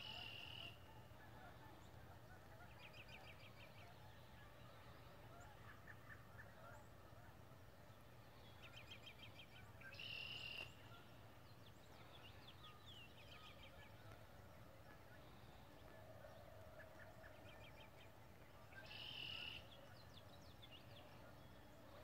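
Distant woodpecker drumming: three short rolls, each under a second, about nine to ten seconds apart. Faint trills of other birds come between the rolls.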